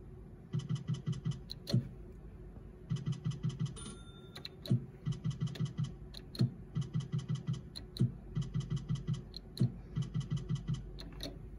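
Zeus Glory video slot machine's reel-spin sound effect: rapid ticking, about seven ticks a second, in runs of a second or so, each ending in a sharper click as the reels stop, repeated about six times with one short chime about four seconds in.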